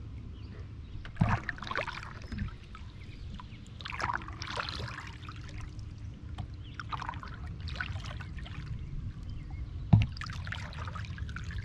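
Canoe paddle strokes heard from a camera on the paddle: the blade splashes and drips through the water about every three seconds over a steady low rumble. There is a sharp knock about a second in and a louder one near the end.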